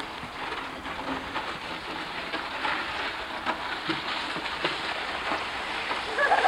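A plastic sled scraping and hissing as it slides over thin, crusty snow, with crunching footsteps in the snow; the sound is a steady crackling. A child's voice starts near the end.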